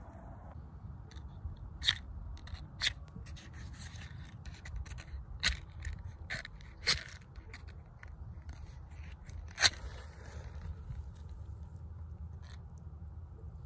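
Matches being struck on a matchbox: about seven short, sharp scratches at irregular intervals, the loudest near the end, and the match fails to light (a dud).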